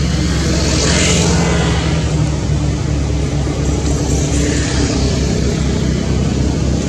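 A steady, loud low rumble with a hiss above it.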